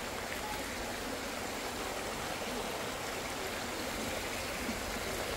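Steady, even rushing hiss of background noise, with no distinct sounds in it.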